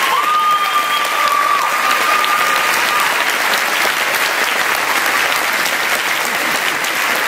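Concert audience applauding steadily, with a high held tone over the clapping for the first three seconds.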